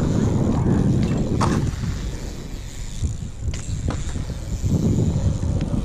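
BMX bike tyres rolling on a concrete skatepark bowl: a low rumble that swells twice as the rider carves the transitions, with a few sharp clicks and knocks from the bike.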